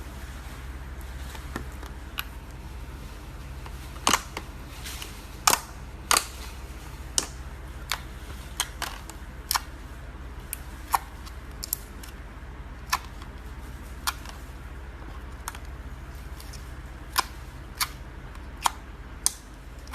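Gold metallic slime being squeezed and poked, giving sharp pops and clicks from trapped air at irregular intervals, some much louder than others, over a steady low hum.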